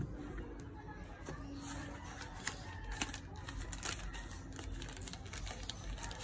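Thin plastic wrapping crinkling and rustling in the hands as a laptop charger is unwrapped. There is a dense run of crackles through the middle and later part, and a single dull knock right at the start.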